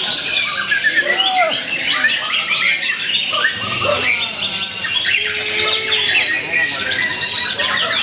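White-rumped shama singing a fast, varied song of rapid chirps, trills and gliding whistles, overlapped by the songs of other caged birds in a dense, unbroken chorus.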